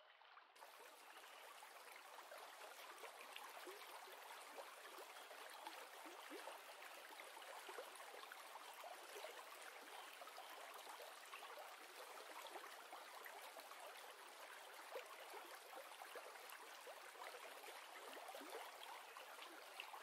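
Faint, steady sound of running, trickling water, rising in over the first half-second.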